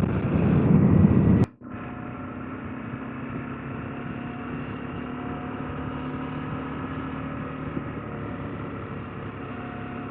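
KTM 890 Adventure R parallel-twin engine and riding noise heard through a helmet camera's microphone. It is loud for the first second and a half, then a click and a sudden drop to a quieter, steady hum with a few steady engine tones.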